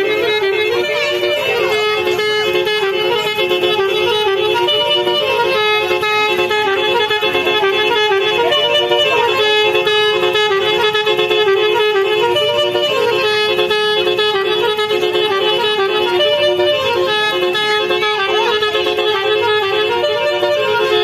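A Basuri musical vehicle horn playing a tune: a continuous, loud melody of held, reedy, horn-like notes stepping up and down over a steady lower note.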